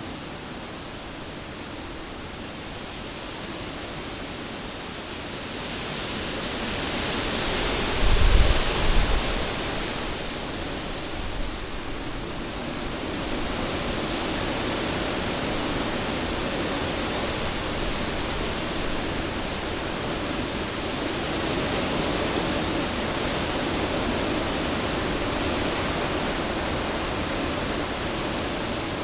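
Cyclone winds blowing in a steady rush. They swell into a strong gust about eight seconds in, with low rumbling buffets, then stay loud and steady.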